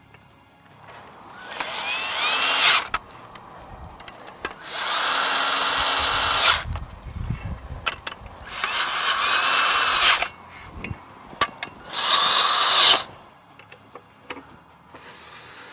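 Cordless drill driving the bolts that fasten a swivel seat to its frame, run in four bursts of a second or two each. Clicks and knocks of metal parts fall between the bursts.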